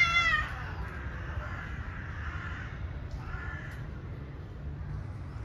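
Animal calls from the tree: the loud end of a long, wavering call in the first half second, then a shorter call about three seconds in, over a steady low background rumble.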